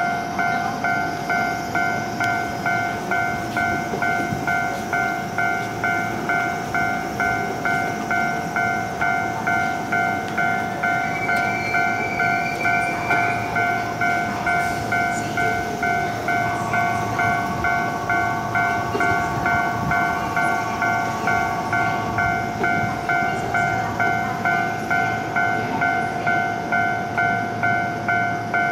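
Japanese electronic level-crossing alarm ringing steadily, a two-tone ding that repeats about one and a half times a second, each strike dying away before the next, which warns that a train is approaching.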